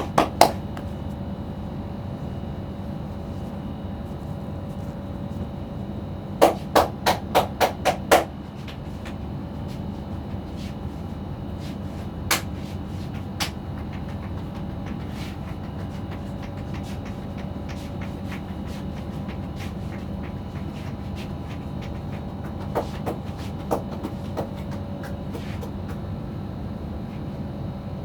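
Percussive head-massage taps on the head, in quick runs: about eight rapid strikes, some four a second, about six seconds in, then single taps and a short cluster later, over a steady background hum.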